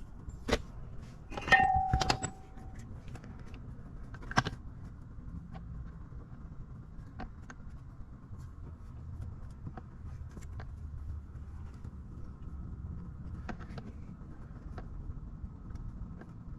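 Scattered metallic clinks and knocks of tools and parts being handled, one ringing briefly about two seconds in, then only a few faint ticks over a low steady hum.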